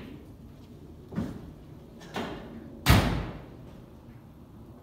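Old 1953 Chevy pickup's steel cab door being shut: two lighter knocks, then one loud slam just before three seconds in.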